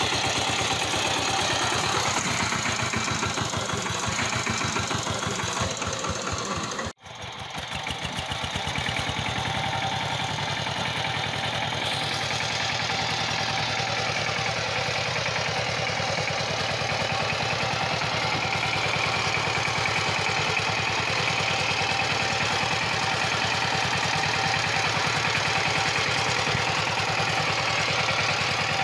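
Two-wheel walk-behind power tiller's engine running steadily with a rapid, even firing beat. The sound cuts out for an instant about a quarter of the way through, then carries on.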